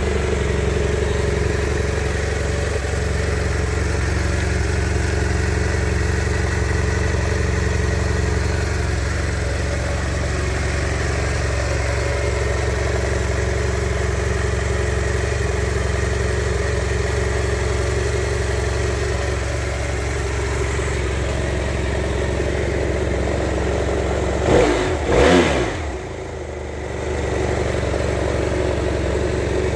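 BMW F 800 GS's parallel-twin engine idling steadily through its stock exhaust. Near the end the throttle is blipped twice in quick succession, the revs rising and falling back to idle.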